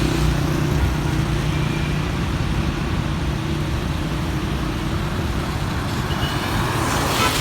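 Street traffic on a rain-wet road: a steady hiss with a vehicle engine's hum that fades out after about three seconds.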